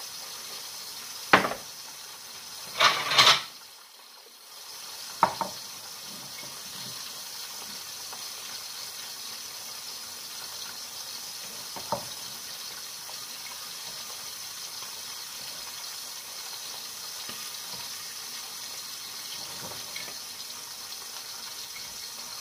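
Kitchen tap running steadily into the sink, cutting out briefly about four seconds in, with a few sharp knocks and clatters of kitchenware, the loudest two within the first four seconds.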